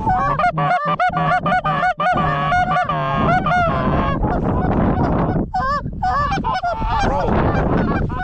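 Goose honking in rapid runs of short honks and clucks, several a second, close and loud.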